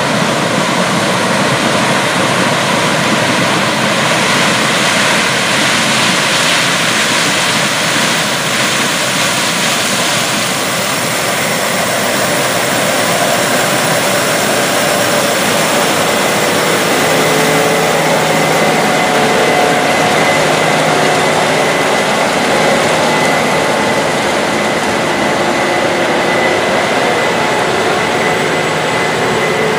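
Combine harvester running steadily while harvesting dry standing corn, with its engine and threshing machinery making a continuous noise. A steady high whine and a low hum come in about halfway through as it passes close by.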